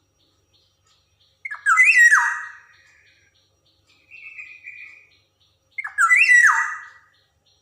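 Black-naped oriole calling: two loud calls, each about a second long with a falling pitch, about four seconds apart, and a softer, shorter call between them.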